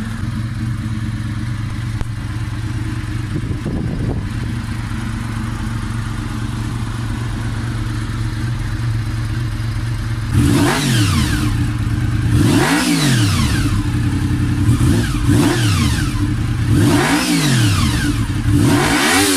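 Honda VFR400R (NC24) 399 cc V4 engine idling steadily, then revved about five times from about halfway on, each blip climbing in pitch and dropping back to idle.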